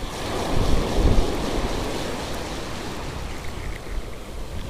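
Open-sea surf breaking and washing ashore, swelling to its loudest about a second in, with wind rumbling on the microphone.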